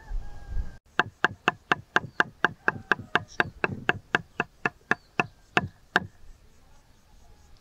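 Knife chopping on a cutting board in a steady rhythm of about four strokes a second, some twenty strokes, stopping about six seconds in.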